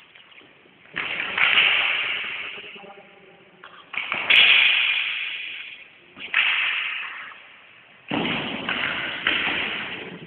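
Swords clashing in four quick exchanges, each a sudden flurry of hits that rings on and dies away in a large echoing hall.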